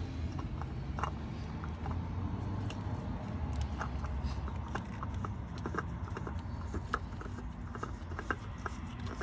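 Scattered light clicks and scrapes of a gloved hand screwing a new oil filter on by hand behind the exhaust manifold heat shield, over a steady low background rumble.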